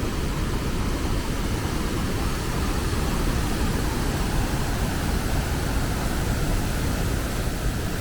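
Turbulent river water rushing over rapids and falls: a steady, unbroken rush, heaviest in the low end.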